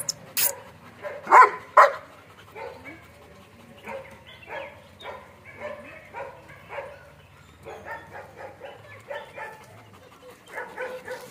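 German Shepherds barking, with two loud barks about a second and a half in, then a run of shorter, quieter barks repeating every half second or so.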